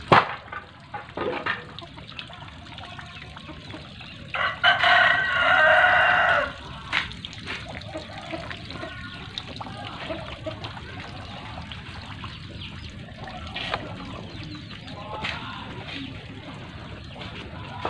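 A rooster crows once, a single long call of about two seconds starting about four and a half seconds in, over a steady low background noise.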